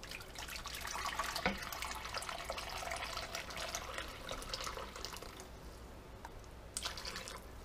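Broth poured from a glass measuring cup into a pot around browned pork roasts, splashing and trickling for about five seconds, with one light knock about a second and a half in. A brief last splash comes near the end.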